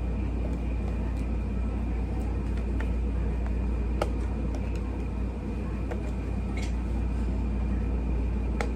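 Steady low rumble, with a few small clicks and taps scattered through it.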